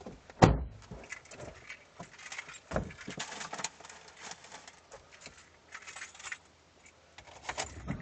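Knocks, clicks and light rattles inside the rear of a Mazda RX-7 FD, with a heavy thump about half a second in and another near three seconds.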